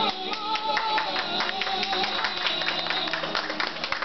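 The last held sung note of a Turkish folk song fading over a plucked string instrument, as a group of men start clapping, the clapping growing denser toward the end.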